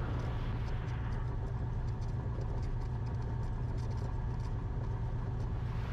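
Cessna 172RG's four-cylinder Lycoming O-360 engine and propeller running steadily at low power shortly after start, with oil pressure up in the green.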